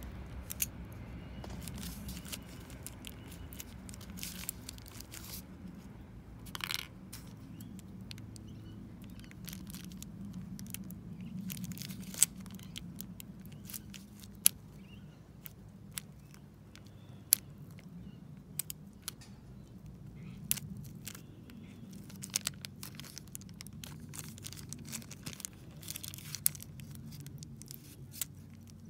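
Small clear plastic bag crinkling and crackling as it is handled and opened to get a round magnet out, with scattered sharp crackles and one short rustle about seven seconds in.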